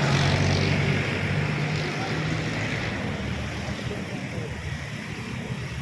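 Diesel vehicle engine running with a steady low drone that fades away over the second half.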